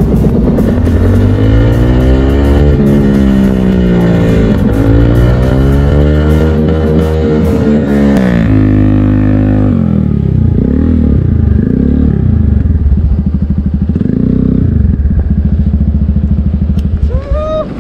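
A motorcycle engine revving up and down: its pitch rises and falls every second or two for the first half, then it runs at a steadier speed with a few short surges.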